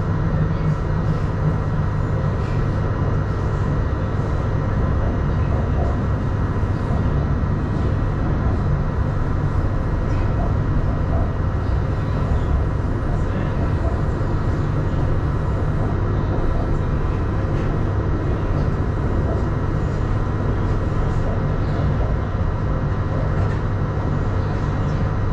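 A Suzhou Metro Line 2 B2-type train running steadily between stations, heard from inside the car: a constant low rumble with a few faint steady tones above it.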